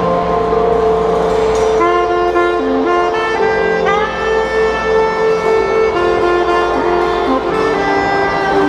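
Live jazz quartet: a soprano saxophone plays the melody in long, held notes over piano, electric bass and drums.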